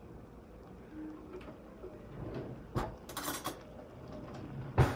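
Faint kitchen handling sounds: a click about three seconds in, a short rustle right after it, and a knock near the end as cookware is moved about.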